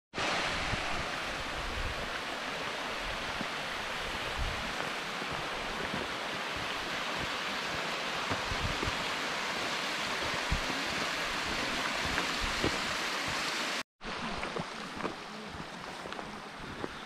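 Mountain stream rushing over rocks, a steady even rush of water. It cuts off abruptly near the end, giving way to quieter outdoor ambience with a few faint clicks.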